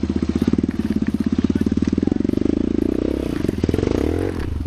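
Trail bike engine, fitted with a racing CDI and racing ignition coil, revving under load while climbing a rocky trail. The firing rate quickens and rises in pitch through the middle, then drops off near the end.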